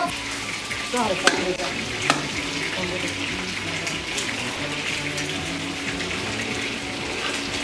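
Food sizzling as it fries in hot oil in a metal pot, a steady crackling hiss, with a few sharp clicks in the first two seconds.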